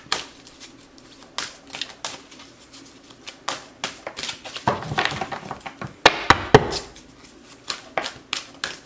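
A deck of oracle cards being shuffled by hand, an irregular run of soft card slaps and clicks as packets drop into the deck, with a few louder slaps about six seconds in.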